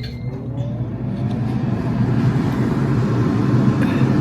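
Ninja Speedi air fryer's fan starting up in air-fry mode: a whine rising in pitch over the first second or so, then a steady whir that slowly grows louder.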